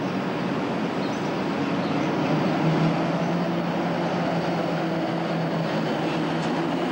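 SNCB class 23 electric locomotive passing slowly at close range with its passenger coaches: a steady hum from the locomotive over the noise of wheels on the rails, with a low steady tone that comes in more clearly about two and a half seconds in.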